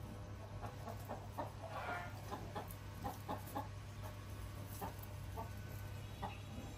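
Piglets making many short grunts and squeaks, a dense cluster of calls about two seconds in, over a steady low hum.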